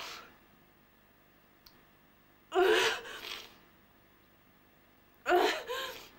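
A woman crying: two short, breathy sobbing gasps, one about two and a half seconds in and one near the end.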